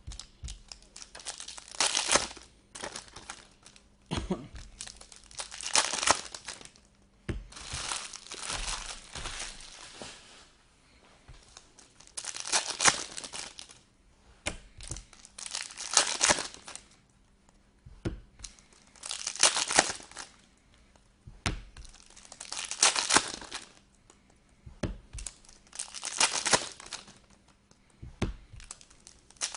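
Trading-card pack wrappers being torn open and crinkled by hand, in about ten separate rustling bursts a few seconds apart.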